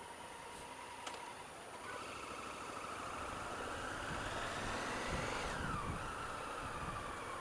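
Honda Africa Twin CRF1000L's parallel-twin engine idling, then pulling away: the revs climb steadily for a few seconds and drop sharply at an upshift near the end.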